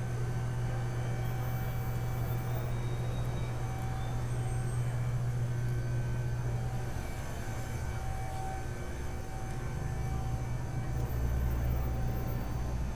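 Volkswagen ALH 1.9 L four-cylinder TDI diesel engine idling with a steady low drone, which deepens about halfway through.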